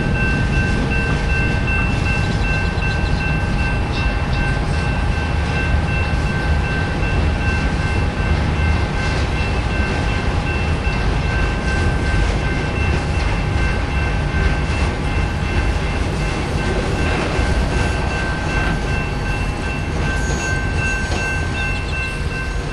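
Intermodal freight train of trailer-carrying flatcars rolling through a grade crossing, with a steady rumble and rattle of wheels on rail. A crossing-signal bell rings in rapid, even pulses over it. The rumble eases slightly near the end as the last car passes.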